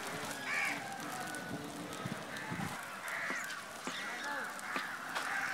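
Birds calling over and over in short arched cries, with light crackling from the wood fire under the grill.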